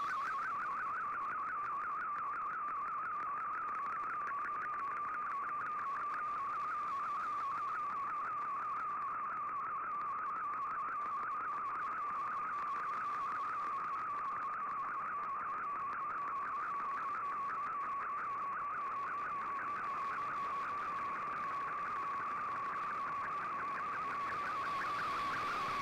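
Shortwave Radiogram's digital picture transmission (Fldigi MFSK image mode) heard through a shortwave receiver: a single tone near 1 kHz that warbles rapidly and constantly in pitch as the image is sent line by line, over steady radio hiss.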